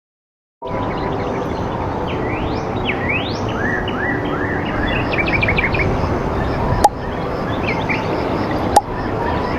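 Cockatiel chirping: short rising whistled calls and a quick run of chirps, over a steady background hiss. The sound starts about half a second in, and two sharp clicks come near the end.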